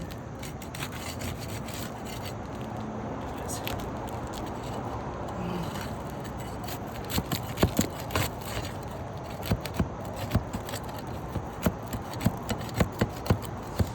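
Asphalt roof shingles being worked loose, scraping and rubbing as their sealed strips are broken apart. About halfway through, a run of sharp clicks and snaps joins the scraping.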